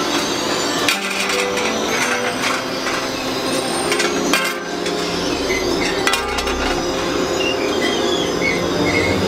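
Factory workshop noise: irregular knocks and clinks of metal pans being handled, over a steady machine hum.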